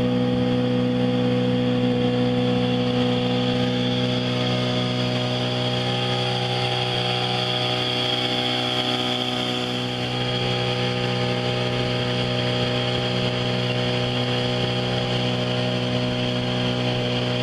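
A boat's engine running at a steady, unchanging speed as the boat travels over calm water, over a steady hiss.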